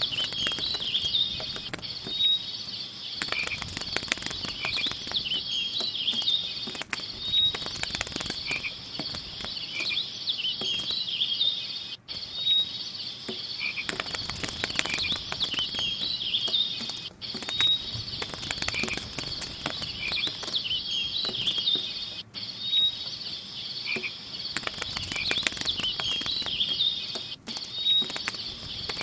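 A steady chorus of high chirping and croaking calls with scattered crackly clicks, repeating as a loop about every five seconds.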